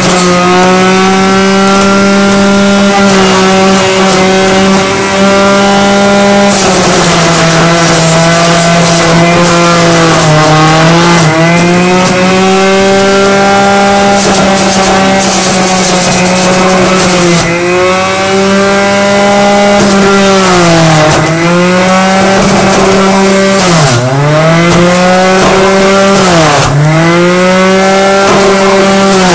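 Electric centrifugal juicer's motor running with a loud, steady whine, its pitch sagging and recovering several times as celery and lime are pushed down the chute and load the spinning basket.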